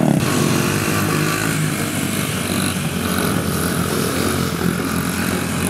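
Small mini bike and pit bike engines running steadily while being ridden on wheelies.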